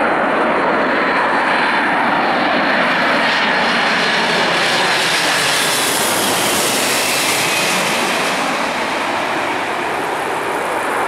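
Boeing 747-400 freighter on final approach passing low overhead, its four jet engines giving a loud, steady rush and whine. The sound is strongest about six seconds in as it passes directly overhead, and the whine then slides down in pitch as it moves away.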